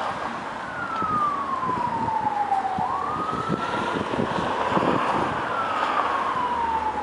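Emergency vehicle siren wailing, its pitch sliding slowly down, rising quickly about three seconds in, then sliding down again.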